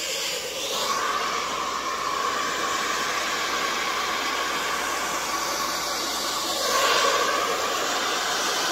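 Handheld hair dryer running steadily, a blowing hiss with a steady whine; briefly louder about seven seconds in.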